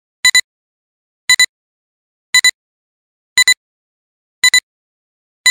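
Electronic countdown beeps: a short double beep once a second, six times, each a clear pitched tone with silence between, marking off the seconds of a film-leader countdown.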